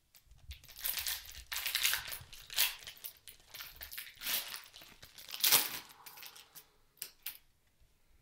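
Foil wrapper of a Panini Prizm basketball card pack crinkling as it is torn open and pulled off the cards, in a run of crackling bursts lasting about five seconds, loudest near the end. A couple of light clicks follow.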